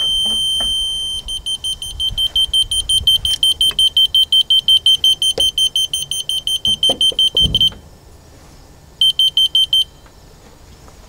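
High-pitched electronic beeper tone, held steady at first, then beeping rapidly on and off, about five times a second, for several seconds. It stops, then beeps again briefly near the end, with a few faint knocks of handling alongside.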